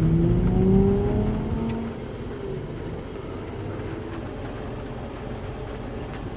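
Truck engine accelerating away, its pitch rising for about two seconds, then settling into steady road and cabin noise.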